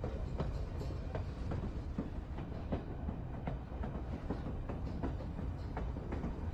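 Narrow-gauge White Pass and Yukon Route railway car rolling along the track: a steady low rumble with irregular clicks and knocks of the wheels over the rails.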